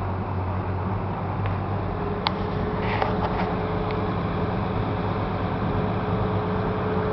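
Steady hum and road noise of a car driving slowly on a city street, heard from inside the car's cabin, with one sharp click about two seconds in.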